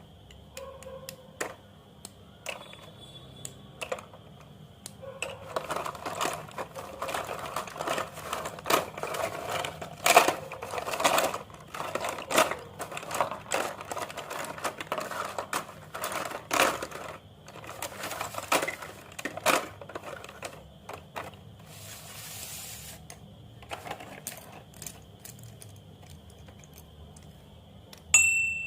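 White slate pencils being snapped and crushed by hand: a dense run of crisp cracks and crunches, thickest in the middle. Near the end, a sharp knock with a brief ringing tone.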